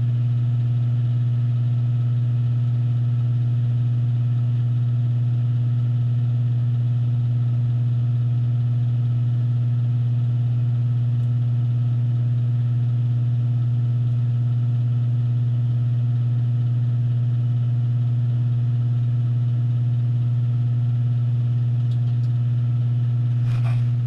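Steady low mechanical hum that holds one pitch without change, with a few light clicks right at the end.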